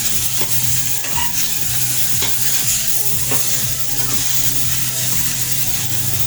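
Rohu fish pieces sizzling in hot mustard oil in a pan over a high gas flame, with a steady low hum and a few light scrapes and clicks.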